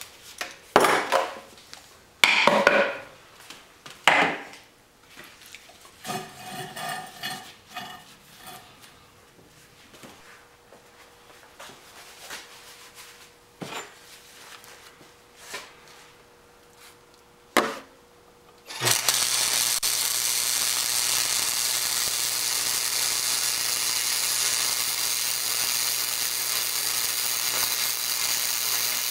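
Metal parts and hand tools clanking and knocking on a steel workbench as a small welded steel piece is handled. About two-thirds of the way in, a wire-feed (MIG) welder strikes an arc and runs with a steady hiss while a bead is laid.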